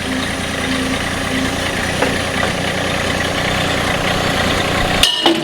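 Loud, steady mechanical running noise from machinery working on a stuck bolt, which stops abruptly with a sharp click about five seconds in.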